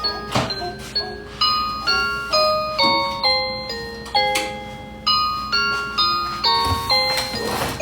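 Background music: a chiming melody of struck bell-like notes, in the manner of a glockenspiel or music box, a few notes a second. A brief clatter near the end.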